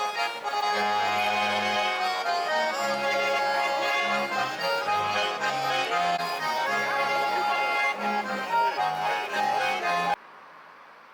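Accordion music in a traditional folk style, with a bass line stepping between a few notes under the melody. It cuts off abruptly about ten seconds in.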